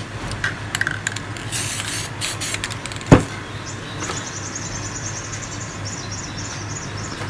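Aerosol spray-paint can hissing in a few short bursts about one and a half to two seconds in, then a single sharp click or knock about three seconds in, over a steady low hum.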